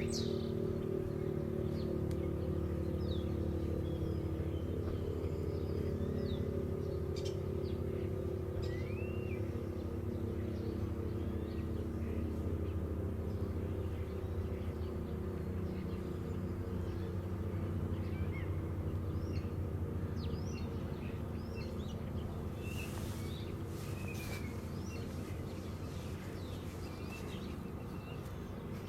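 Federal Signal STH-10 electromechanical siren coasting down after its test signal, its low tones sagging slowly in pitch and fading, with birds chirping over it.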